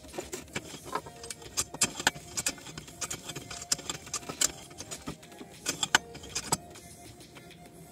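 Irregular metallic clicks, rattles and a few sharper knocks from a homemade tube-column drill stand as its drill carriage is worked up and down the column.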